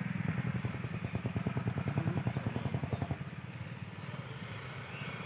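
Tractor diesel engine running under load, hauling two trailers loaded with sugarcane, with a fast, even exhaust chug. The beat is strongest for the first three seconds, then fades.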